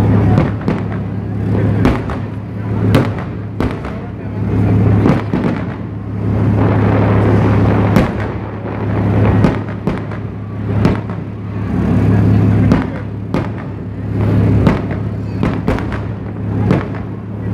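Fireworks display: many sharp bangs at irregular intervals, over music with a deep, steady bass that swells and fades every couple of seconds.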